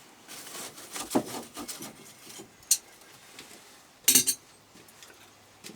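A few irregular metallic clinks and clanks of blacksmith's tools and iron stock at the forge, the loudest a short cluster about four seconds in.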